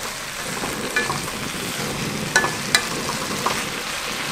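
Blanched sweet potato stems sizzling in a wok as they are stir-fried and tossed to mix in the seasoning, with the wooden spoon and chopsticks clicking against the pan a few times, the two loudest taps close together about two and a half seconds in.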